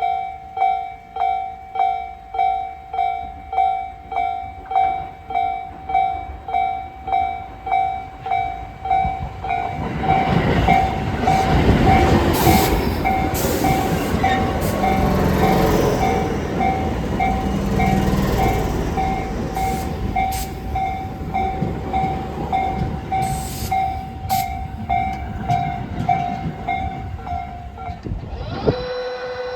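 A Japanese level-crossing warning bell rings a steady repeating clang, about one and a half strikes a second. From about ten seconds in, a Tobu 8000-series electric train runs into the station, loudest around twelve seconds, its wheels clicking over rail joints as it slows. The bell stops shortly before the end, and a steady tone starts just after.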